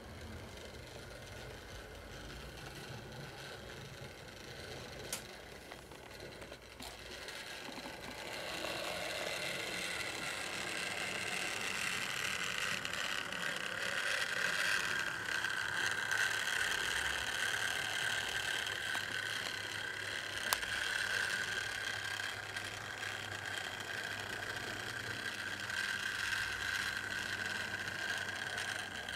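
Fleischmann HO-scale model electric train running on its track, its small motor's steady whine growing louder about eight seconds in and then holding. There are a few sharp clicks along the way.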